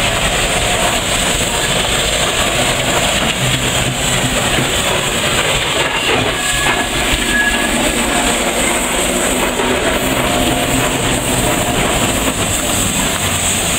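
Steam traction engine running as it drives off along the street, passing close by, with a steady mix of steam and mechanical noise.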